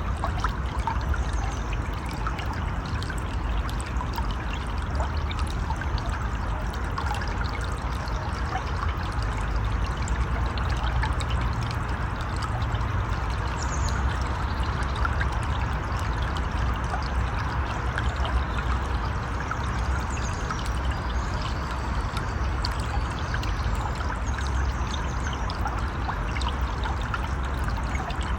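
River water flowing steadily, a continuous even rush and trickle.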